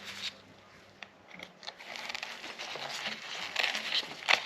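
Light rustling and scattered small clicks of pistol-cleaning tools being handled and picked up.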